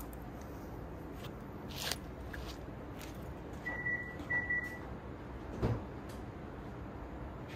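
Two short electronic beeps from the Hyundai Genesis Coupe as it is unlocked, its lights flashing, after a few footsteps. A thump follows about a second later as the driver's door is opened. The engine is not running yet.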